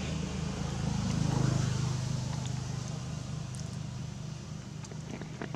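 Steady low engine-like hum, swelling for a second or so about a second in and then easing off, with a few faint clicks near the end.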